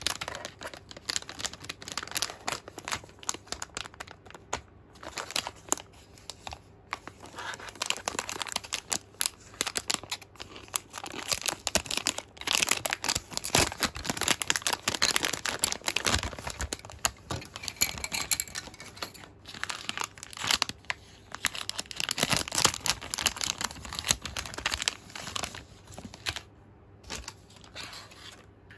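Clear plastic packaging bags crinkling and rustling as hands open them and pull them off small plastic toys: a dense run of crackles with a few brief pauses.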